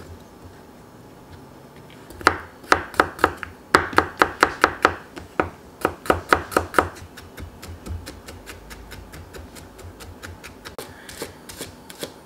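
Chef's knife chopping rapidly on a wooden cutting board, mincing green onion and other aromatics. Loud, evenly spaced strikes start about two seconds in, about four a second. After the middle they become lighter and quicker.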